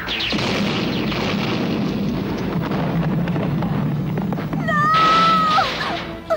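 Cartoon sound effects of laser fire and an explosion, making a long noisy blast. About four and a half seconds in, a woman screams a long, held "No!"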